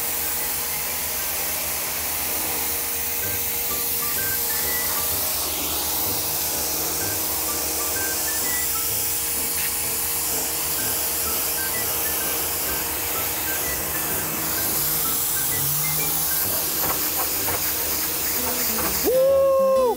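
High-pressure water jet from a pressure washer wand spraying the metal side of a grimy dumpster: a steady hiss of spray on metal. About a second before the end, a louder sound that swoops up and down in pitch breaks in.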